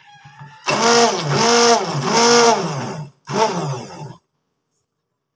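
Immersion hand blender puréeing softened, boiled tomatoes in a pan, run in pulses. A long burst of about two and a half seconds has the motor's pitch rising and falling three times. A shorter burst follows, and the motor stops about four seconds in.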